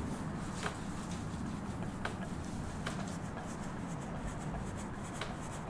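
A screw being turned by hand into a plastic wall plug: faint scraping and rubbing with a few soft clicks, over a steady low room hum.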